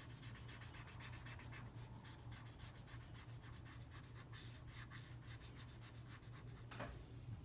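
Marker scribbling quickly back and forth on paper while filling in a coloured area: faint, even, rapid scratching strokes over a low steady hum.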